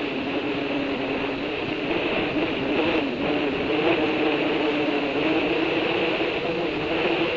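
Steady drone of a distant engine, its pitch wavering slightly, over an even hiss.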